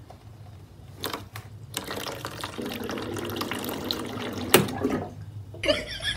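Water running from a water dispenser's tap, which a cat has pushed open with its paw, with a few plastic clicks and one sharp click about four and a half seconds in.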